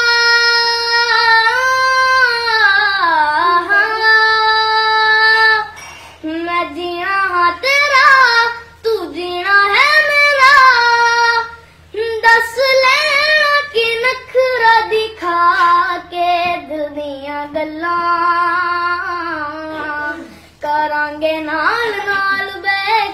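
A boy singing a Punjabi film song solo in a clear, high voice, with long held notes and ornamented runs. He pauses briefly for breath between phrases.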